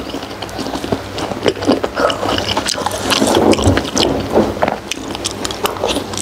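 Close-up chewing and wet mouth sounds of someone eating soft steamed pork skin: a run of short, irregular clicks and smacks over a steady low hum.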